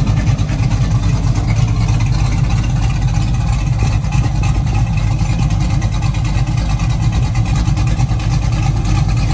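Cammed Chevrolet Silverado V8, fitted with a Brian Tooley stage 3 camshaft and running with no catalytic converters, idling steadily and loudly through open exhaust cutouts.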